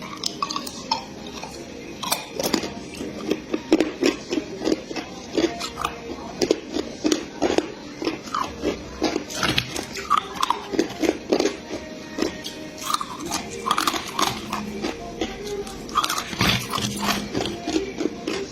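Ice being bitten and chewed close to the microphone: a steady run of sharp, irregular crunches, several a second.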